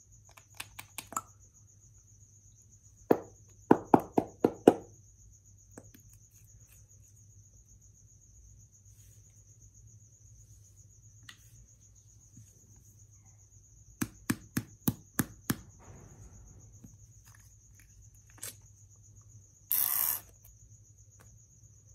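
Clear slime with makeup mixed in being squeezed and kneaded by hand. It gives clusters of sharp wet pops and clicks, with a louder, longer squelch near the end as it is pressed flat against the table.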